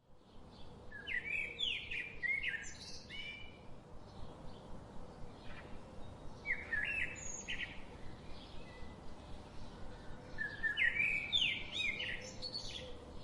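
Small pet parrots chirping in three bunches of quick, high chirps with pauses between, over a steady background hiss.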